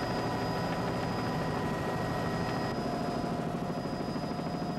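An engine running steadily with a fast, even throb; its tone shifts slightly about three seconds in.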